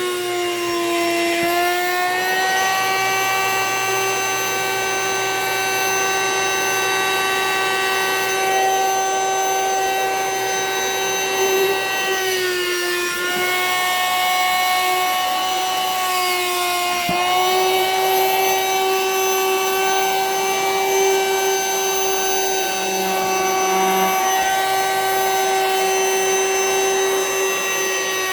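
Vacuum cleaner motor running with a steady high whine, sucking the air out of a vacuum-seal storage bag full of plushies. Its pitch sags briefly about a second in, around twelve seconds in and around seventeen seconds in.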